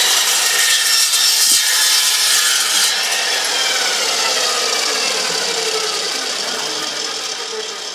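Milwaukee metal-cutting chop saw with a carbide blade sawing through 1-inch round tubing, loud, with the tubing ringing. The harsh cutting noise stops about three seconds in, and the blade then spins down with a slowly falling whine.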